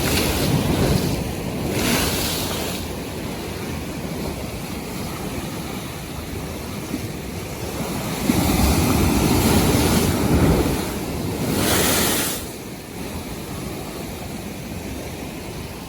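North Sea waves breaking and washing, swelling louder twice in the first few seconds and again in a longer swell from about eight to twelve seconds in, with wind on the microphone.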